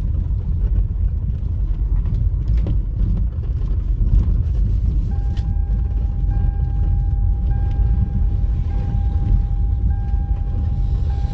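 Vehicle travelling on a rough road: a steady low rumble with scattered rattles and creaking knocks. About five seconds in, a steady high-pitched tone starts and holds.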